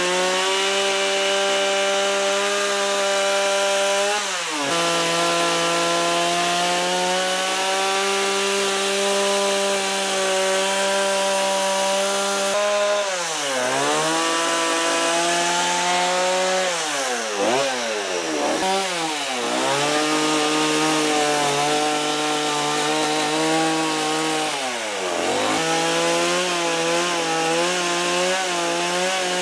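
Stihl chainsaw running at high revs while cutting lines into wood. The engine note dips and picks back up about four seconds in, several times in quick succession in the middle, and once more near the end, as the throttle is eased and opened between cuts.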